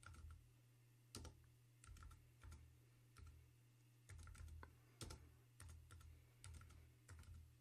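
Faint typing on a computer keyboard: separate keystrokes at uneven intervals, with short pauses between small runs of keys.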